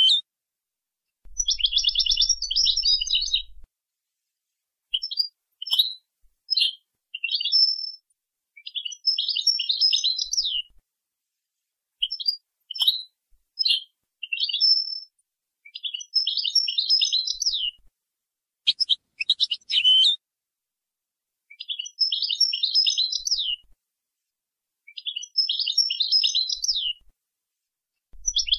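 European goldfinch singing in the Moroccan 'jnanat Boujaad' song style: repeated short phrases of rapid twittering and trills, each a second or two long, with brief silent gaps between them.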